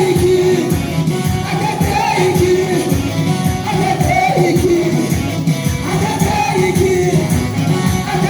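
Ethiopian gospel song: a voice singing phrases over a band with a steady, driving beat.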